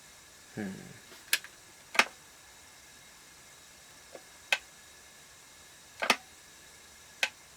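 A few sharp, separate clicks spaced irregularly, about five over several seconds, with a softer low thump about half a second in.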